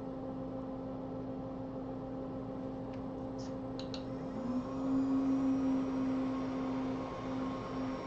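Small electric motor whirring steadily with a low hum, with a few light clicks around three to four seconds in. About four and a half seconds in, the whir rises slightly in pitch and gets louder, then wavers.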